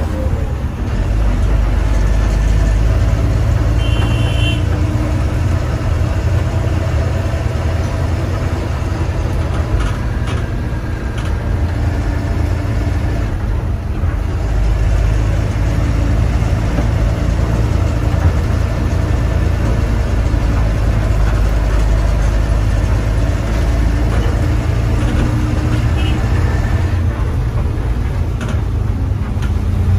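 KSRTC bus on the move: the diesel engine's steady low rumble together with road and tyre noise, with a brief high tone about four seconds in.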